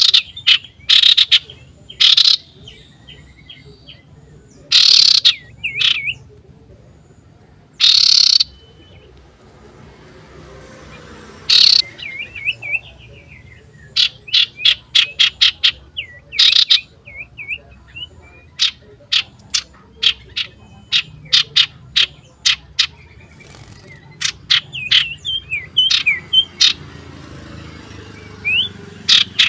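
Common iora (sirtu, cipoh) calling loudly and insistently, a string of sharp short notes, a few drawn out to about half a second, with quieter twisting chirps in between; the notes come in quick runs through the second half. The loud calling is the bird's challenge to a rival placed beside it.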